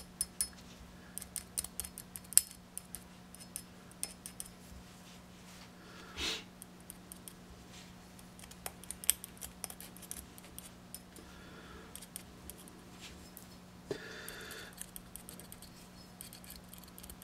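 Scattered light metallic clicks and ticks from handling a Kel-Tec P3AT's pistol slide while oiling it from a needle-tip oiler bottle, with a couple of brief soft rustles, over a faint steady hum.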